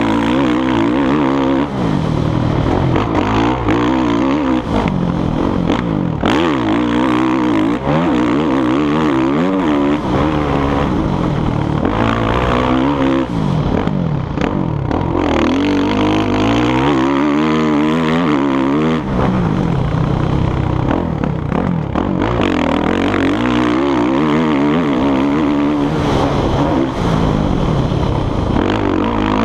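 Motocross dirt bike engine under hard riding, its revs climbing and dropping again and again as the throttle is worked on the track.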